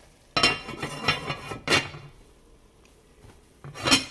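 Cookware clattering: a spoon scraping and knocking in a frying pan for over a second, ending in a sharp clank, then one loud clank near the end as a lid goes onto the pan.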